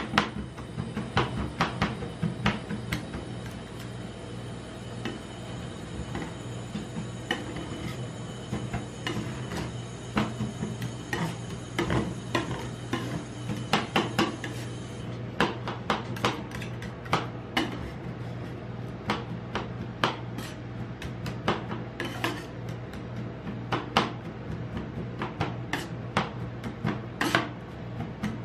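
Two metal spatulas chopping and scraping on the frozen steel plate of a rolled-ice-cream pan: irregular sharp clacks as chocolate pieces are chopped into the freezing cream, over a steady low hum.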